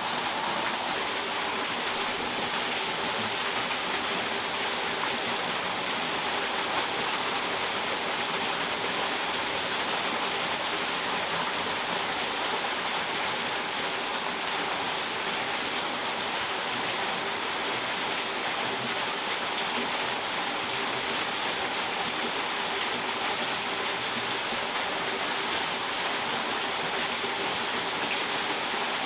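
Steady rush of water pouring from a wooden flume onto a waterwheel, an even splashing noise with no breaks.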